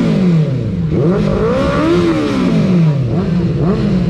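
Benelli 600i's inline-four engine being revved, its pitch climbing and falling back about twice in slow sweeps.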